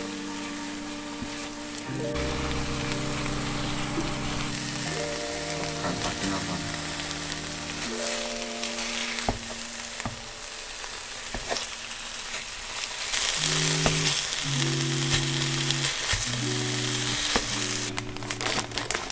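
Food sizzling and frying in hot oil in a pan, a steady hiss that grows louder about two-thirds of the way through, with a few utensil clicks near the end.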